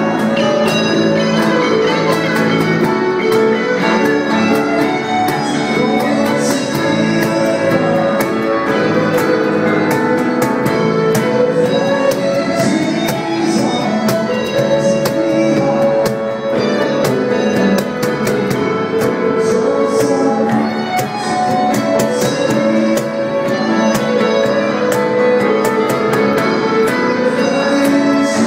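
Live band music played in the room, with guitar, running without a break.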